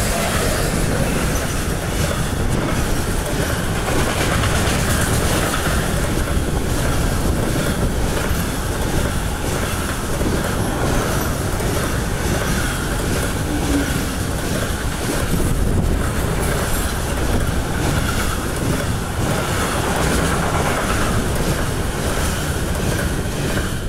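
Intermodal freight train rolling past close by, wagons loaded with lorry trailers: a loud, steady rumble and rattle of wheels on the rails.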